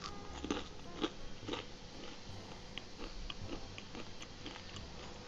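Crunching bites and chewing of a crispy fried green banana fry: three sharp crunches in the first second and a half, then softer chewing crunches.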